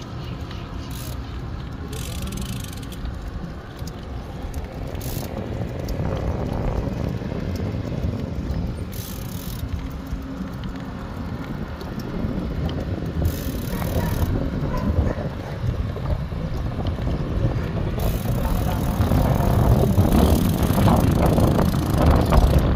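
Riding a road bicycle on asphalt: wind rushing over the microphone and tyres rolling, a steady noisy rumble that grows louder in the last few seconds.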